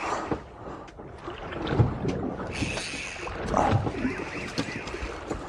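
Sea and wind noise aboard a small boat drifting on a swell, with wind buffeting the microphone.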